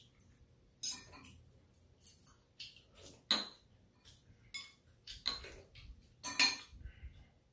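Chopsticks and spoons clicking and clinking irregularly against bowls and a metal serving tray during a meal. One loud clink comes a little past three seconds in, and the loudest comes shortly before the end.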